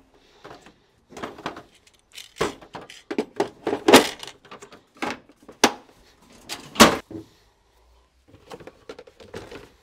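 Bosch L-Boxx plastic tool case being handled and set on its shelf: a string of irregular clicks and knocks, the sharpest about four seconds in and again just before seven seconds.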